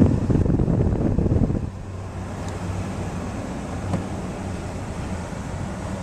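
Low rumble of wind buffeting the microphone for about the first second and a half, then a steady low hum inside a pickup truck's cab.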